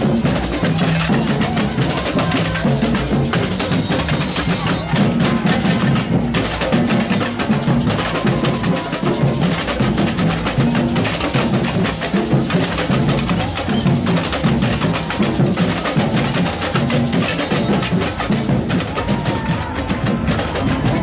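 Carnival samba drum section (batucada) playing a dense, driving rhythm: deep drum pulses under many sharp higher strokes.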